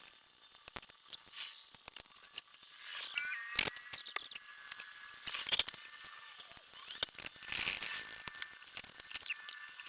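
Hand tools clicking, scraping and knocking on metal while unfastening a rusted fuel tank from an old woodchipper, with a brief squeak about three seconds in.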